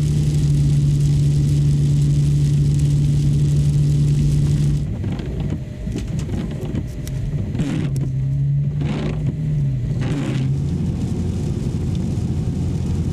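A motor vehicle's engine running. A steady hum for the first few seconds gives way to a rougher sound whose pitch wavers and glides, before it settles into a steady rumble.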